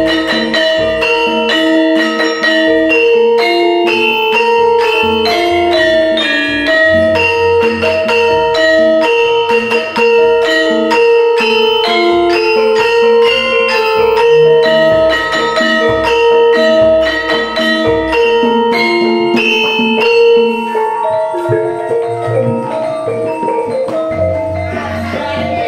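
Javanese gamelan ensemble playing in pelog barang tuning: bronze-keyed saron and demung struck with mallets carry a steady melodic line of ringing notes, over kendang hand drums and gongs.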